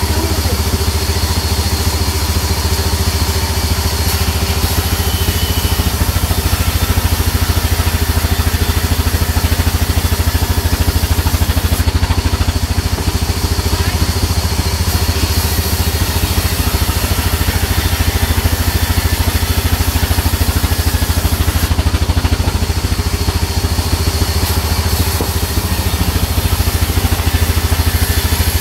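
Sawmill running steadily as a plank of margosa (neem) wood is fed through the saw: a steady low drone from the machine's drive with a hiss of cutting over it, which eases briefly twice.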